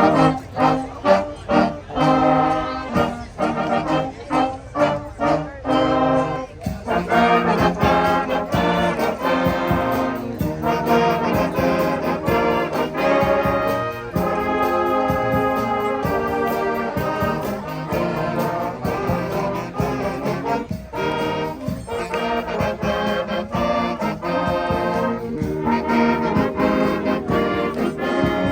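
Brass-led music playing, with short punchy notes for the first few seconds and then longer, held phrases.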